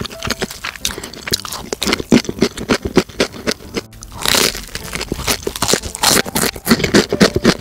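Crunching and chewing of crispy-battered fried chicken: a dense run of crackling crunches, with one longer, louder crunch about four seconds in.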